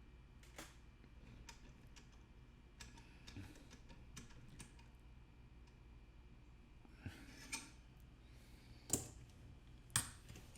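Faint, scattered small clicks and taps, with a few sharper ones in the second half, from handling coins and equipment at a desk.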